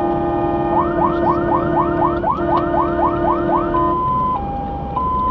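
Fire engine's siren on an emergency run: an alternating two-tone hi-lo that switches to a fast rising yelp, about four sweeps a second, about a second in, then returns to hi-lo near four seconds in. A steady lower tone sounds beneath it and stops when the yelp ends.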